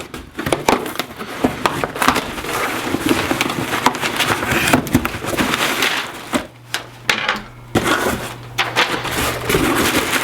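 A cardboard box and its packaging being opened and handled: a busy run of rustling, crinkling and scraping, with a short lull about two-thirds through.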